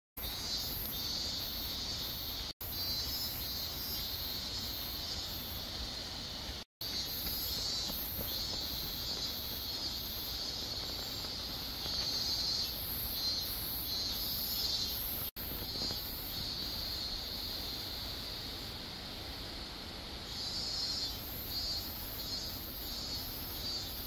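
Chorus of insects shrilling: a steady high buzz with a higher chirping pulse repeating a few times a second. The sound drops out for an instant three times.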